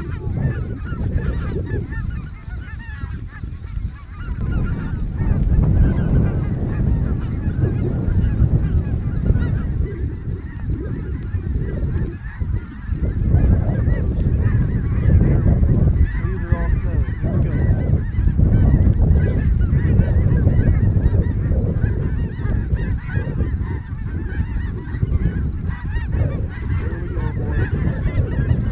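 A large flock of snow geese calling overhead: a dense, unbroken chorus of honks and yelps over a heavy low rumble.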